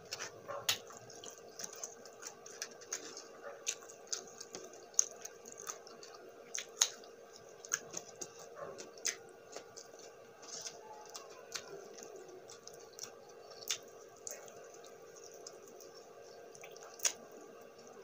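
Close-up wet eating sounds of saucy chicken wings and rice being chewed: irregular sharp mouth clicks and smacks, a few louder ones, over a faint steady hum.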